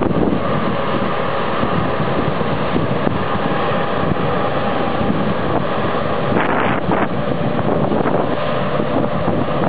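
Combine harvester running steadily, with heavy wind buffeting the microphone.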